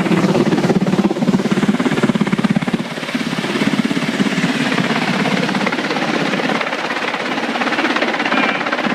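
Helicopter close by, its rotor blades beating in a rapid, steady chop over a loud rushing noise. The chop eases a little about three seconds in.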